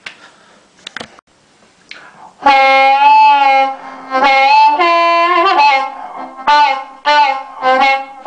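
Amplified blues harmonica, a Seidel 1847 in C, played into a microphone fitted with a bicycle-tube rubber sleeve and heard through a 6-watt VHT amp with a 10-inch speaker. After a few faint handling clicks it starts about two and a half seconds in with loud held chords and a bent note, then short rhythmic chords about two a second.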